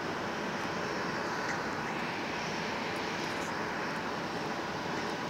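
Jet engines of a Boeing 737 airliner running steadily on the ground, a constant rushing hiss with no rise or fall in power.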